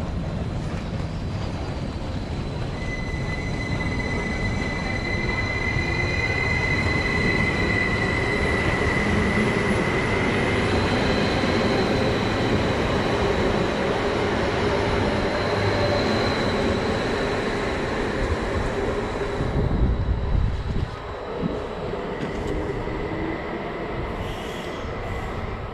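Passenger train pulling into a station platform, its rumble building while a high steady squeal rises as it brakes. It comes to a stop about twenty seconds in and the noise drops away.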